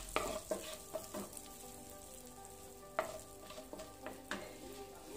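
Whole spices sizzling in hot butter and oil in a kadhai, stirred with a wooden spatula that scrapes the pan, with occasional sharp clicks.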